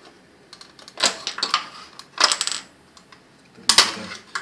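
Needle-nose pliers and hard plastic parts of a bidet sprayer assembly clinking and clattering against each other in three short bursts, the middle one with a brief metallic ring.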